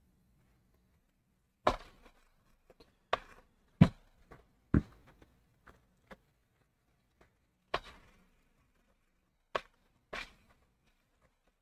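Irregular light clicks and knocks from hands and a cleaning cloth working over a laptop motherboard on the workbench, about a dozen in all, the loudest about four seconds in.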